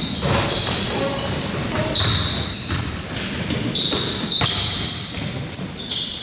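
Live basketball play in a gym: a basketball bouncing on the hardwood a few times, with many short high squeaks from sneakers on the court and players' voices in an echoing hall.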